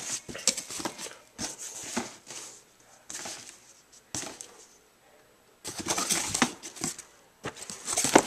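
Cardboard box and its packing being opened and handled: irregular bursts of rustling and sharp clicks and knocks, with a quiet pause of about a second partway through.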